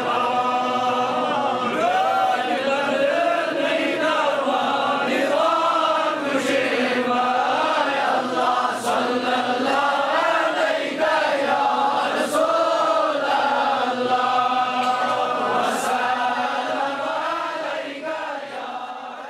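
Voices chanting together in a devotional song, several voices at once, steady and unbroken, fading out near the end.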